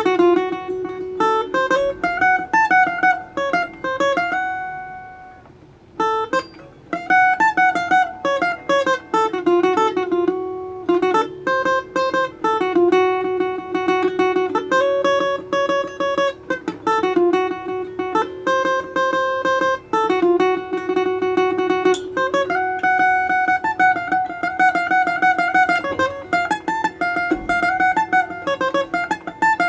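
Solo plucked string instrument playing an improvised melody in the Ethiopian Anchihoye scale, note after note over a recurring low note. Near the start one note is left to ring and fade out before the playing picks up again.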